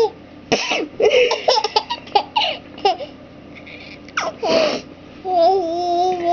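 Baby laughing in short bursts at a man's sneezes. There is a sneeze about four seconds in, and a drawn-out "ahh" building toward the next sneeze near the end.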